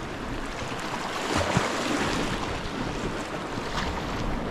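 Sea swell washing and breaking against a rocky shore, with wind buffeting the microphone.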